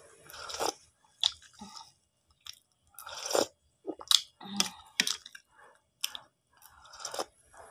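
A person eating noodle soup from a spoon close to the microphone, chewing and slurping: a string of short, irregular wet mouth sounds.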